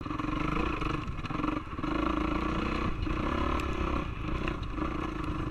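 Enduro motorcycle engine running under throttle, easing off briefly a few times.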